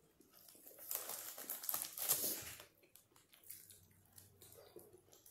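Biting into and chewing a shawarma wrap close to the microphone: crinkly, crackling bites that are busiest in the first half and then fade to quieter chewing.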